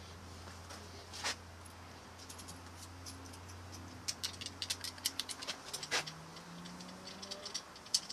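Small metallic clicks and taps of an indicator's threaded stud and nut being handled and tried against a threaded hole in a motorcycle's steel chassis arm, one click about a second in and a quick run of them from about four seconds in.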